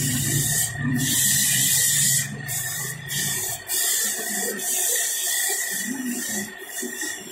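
Sandpaper hissing against a wooden foot spinning on a wood lathe, in repeated strokes of about half a second to a second and a half as the paper is pressed on and eased off, over a steady high whine.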